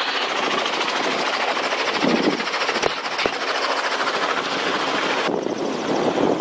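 Robinson R44 helicopter in flight: steady rotor beat and engine noise, with a rapid even chop.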